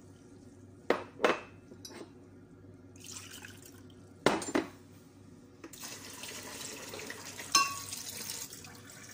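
Water being poured from a cup into a mixing bowl of egg and milk powder, in several pours. Sharp knocks ring out three times, in quick pairs, louder than the pouring.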